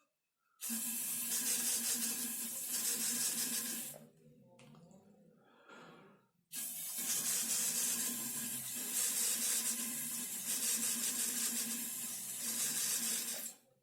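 Hand-pumped pressurised mist inhaler spraying a fine aerosol through its nozzle: a steady hiss with a low steady tone under it, in two long bursts, the first about three and a half seconds and the second about seven.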